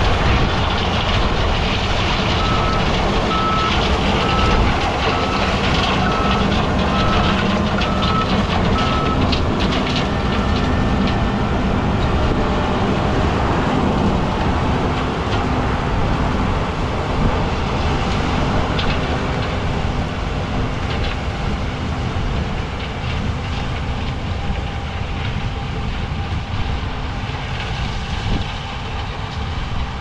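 John Deere S680 combine harvester running under load while harvesting corn: a steady engine and threshing drone that slowly fades as the machine moves away. A regular high beeping, a little more than one beep a second, sounds from about two seconds in to about nine seconds.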